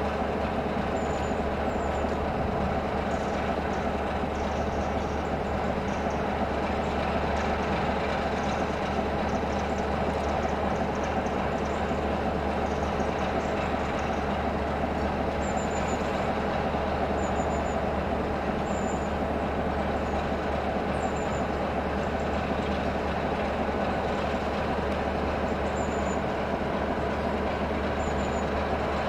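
British Rail Class 33 diesel locomotive's Sulzer eight-cylinder engine idling steadily, a continuous low diesel drone with no change in revs.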